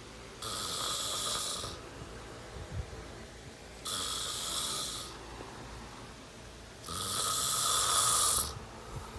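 A person snoring loudly: three long snores, each lasting a little over a second and coming about three seconds apart, with quieter breathing between; the third snore is the loudest.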